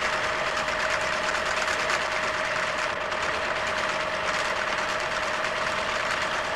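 Electric sewing machine running at a steady fast speed while stitching decorative zigzag and star patterns: a rapid, even needle clatter over a steady motor tone.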